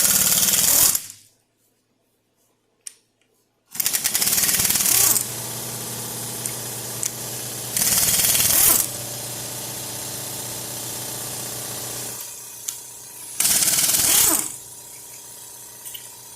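Impact wrench hammering in short bursts of about a second, four times, as it loosens the main bearing cap bolts on a Cadillac 472 big-block V8. A quieter steady hum runs between the later bursts.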